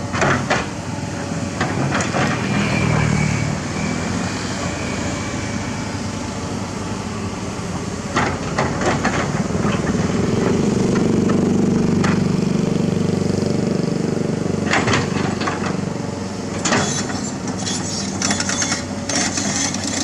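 Komatsu PC228 excavator's diesel engine running steadily, its note swelling under hydraulic load about halfway through, with clanks and scrapes of the bucket working the soil coming in short clusters.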